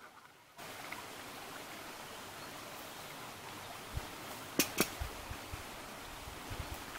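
Steady rush of running water, starting abruptly about half a second in. Two sharp clicks, the loudest sounds, come just before the five-second mark, with a few soft low thumps around them.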